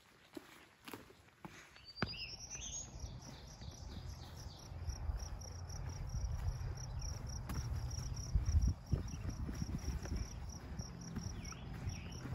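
Footsteps on a rocky trail for about two seconds, then wind rumbling on the microphone under a high, evenly pulsed animal trill that starts with a short rising sweep and repeats several times a second.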